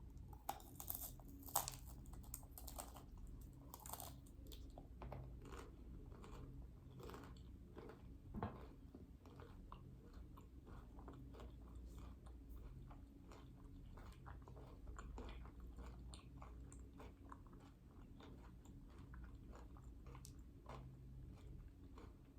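Close-miked chewing and biting of desserts: many small crunchy, wet mouth clicks, the loudest bites in the first few seconds, with one firmer knock about eight seconds in.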